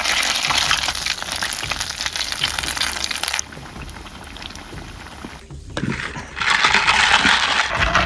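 Bibim naengmyeon noodles deep-frying in hot oil: a dense crackling sizzle. It drops to a quieter sizzle about three seconds in, then comes back loud after about six seconds.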